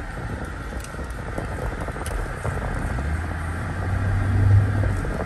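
Road noise inside the cabin of a 2003 Mercedes-Benz CL55 AMG on the move, with its supercharged 5.4-litre V8 running. A low engine drone swells from about three seconds in and is loudest near the end.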